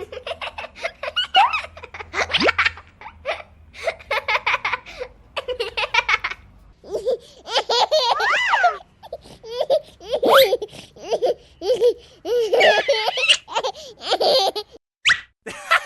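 Baby laughing in repeated strings of quick giggles and belly laughs, with short pauses between them.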